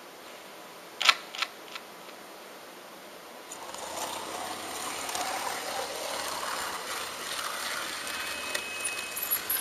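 HO-scale model locomotive starting off and running along the track: its small electric motor and gears whir with the wheels rattling over the rails, rising and growing louder from about three and a half seconds in. About a second in, before it moves, there are three sharp clicks.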